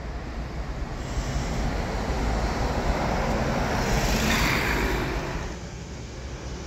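A vehicle passing by, its noise growing louder to a peak about four seconds in and then fading away.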